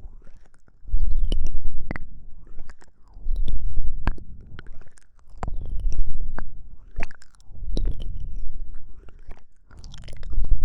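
Close-mic ASMR mouth sounds: wet lip and tongue clicks over light panting breaths. The breaths puff into the microphone in swells about every two seconds.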